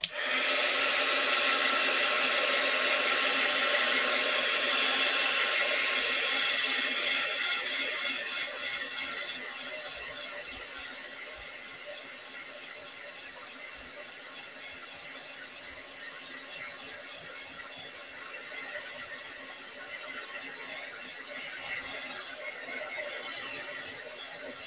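Handheld heat dryer switched on abruptly and blowing steadily, a hiss with a high whine, drying wet watercolour paint. It drops noticeably quieter after about eight seconds and runs on more unevenly.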